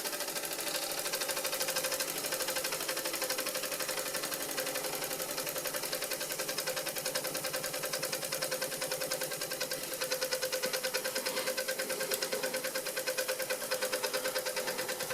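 Doll 320/3 toy steam engine ticking over slowly, with a rapid, even ticking and a steady squeak, which the owner thinks comes from the pulley shaft, perhaps slightly bent.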